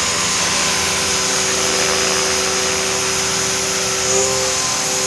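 CopterX CX500 500-size electric RC helicopter hovering low: a steady whine from its 1600kv brushless motor and drive gearing on a 6S lipo, over the rush of the rotor blades. A slight swell about four seconds in.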